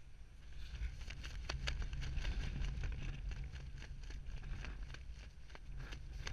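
Wind buffeting a skydiver's helmet-camera microphone under an open parachute canopy: a low rumble with a hiss over it and many irregular crackling clicks.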